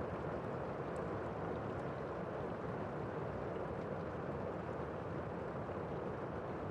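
Heavy rain heard from indoors: a steady, muffled rush with the high end dulled, and a few faint drops ticking.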